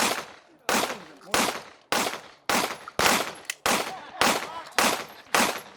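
Shotgun fire on a range: about ten shots in quick succession, roughly one every half second or so, each a sharp blast with a short echo trailing off.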